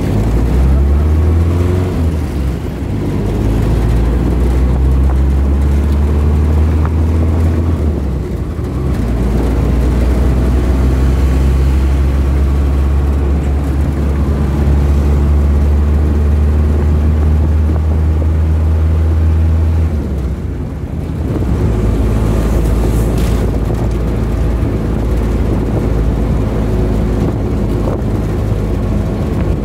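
Motor vehicle engine running steadily, heard from on board during a ride, with a strong low hum that dips briefly a few times.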